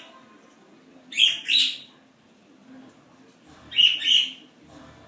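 Quaker parrot (monk parakeet) giving four short, shrill calls in two quick pairs, the first pair about a second in and the second near the four-second mark.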